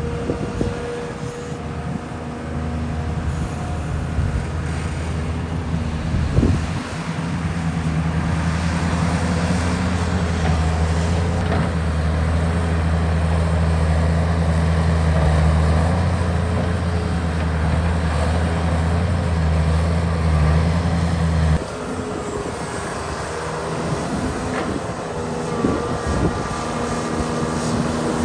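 Heavy diesel engine of a Volvo excavator working a load of soil into a dump truck, with a low steady engine note. The engine note grows louder about a quarter of the way in, holds, and drops suddenly about three quarters through. A few short knocks come in between.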